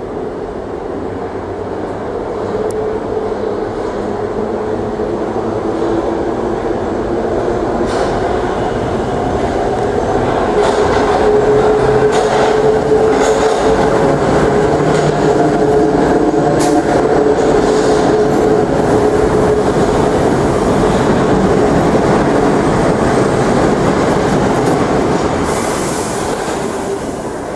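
Vintage electric train running along an underground station track, its motors humming steadily and its wheels clicking over the rails, growing louder as it comes alongside. A short hiss comes near the end as it moves off past.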